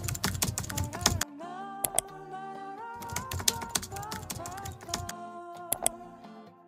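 Background music: a light melody of held notes over crisp, fast clicking percussion, fading towards the end.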